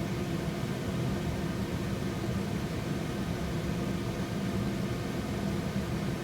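Stovetop steamer over boiling water, steaming green beans: a steady low rushing rumble with a faint hum.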